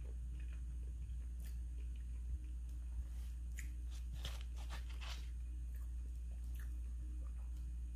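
A person chewing soft Bangladeshi milk sweets, with faint clicks from the spoon and mouth, most of them about four to five seconds in, over a steady low hum.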